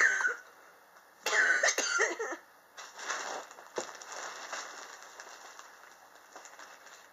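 A man coughing: one hard cough right at the start, then a fit of about three more coughs about a second in, trailing off into fainter sounds. It is the chronic cough he has had for years, which he blames on extreme temperature changes in his apartment.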